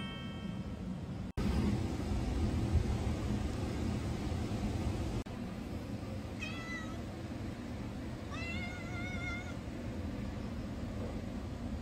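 A stray cat meowing twice: a short meow, then about two seconds later a longer, wavering meow.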